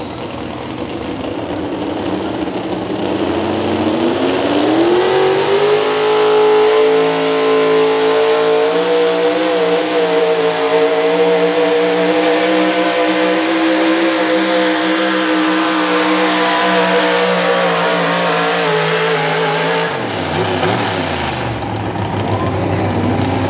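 4WD pulling truck's engine at full throttle on a pull: the revs climb over the first few seconds and are held high and fairly steady for about a quarter of a minute, then fall away sharply about 20 seconds in as the throttle is let off.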